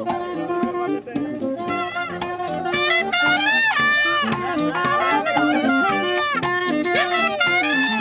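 Marching brass band playing an upbeat tune on trumpets and horns, in short punchy phrases.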